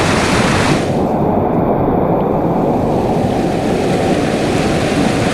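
Loud, steady rushing of river water. About a second in, its hiss above the middle range drops away.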